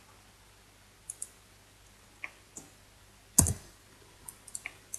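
Computer mouse clicks, scattered and irregular, with a louder knock about three and a half seconds in and a quick run of clicks near the end.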